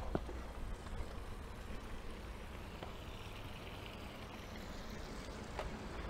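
A few light footsteps on composite decking, the loudest a sharp knock just after the start, over a low steady rumble.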